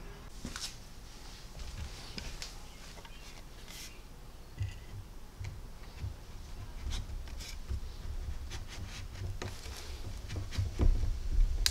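Light wooden knocks and rubbing as tenoned hardwood frame pieces are handled and fitted on a workbench, over a low rumble that grows a little louder after the first few seconds; the loudest knocks come near the end.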